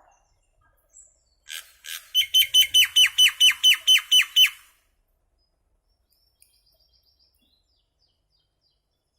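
Common myna calling: two harsh notes, then a fast run of about a dozen loud, sharply falling notes over some two seconds, followed by a few faint short notes.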